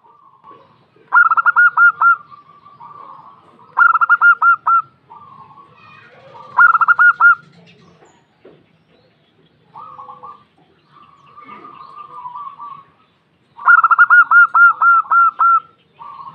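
Female zebra dove (perkutut) calling: four bursts of quick, staccato cooing notes, the last one the longest, with softer cooing notes between them.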